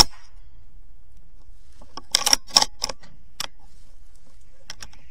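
A single sharp air rifle shot at the very start. About two seconds in comes a cluster of metallic clicks and rattles, then a single click and a few lighter clicks near the end, as the rifle's action is worked to reload.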